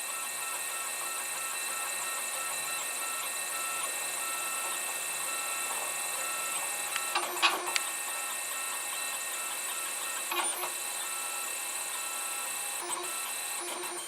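Protomaker FDM 3D printer running the last seconds of a print: stepper motors whirring in short, repeated moves over a steady hiss, with brief louder moves about 7, 10 and 13 seconds in.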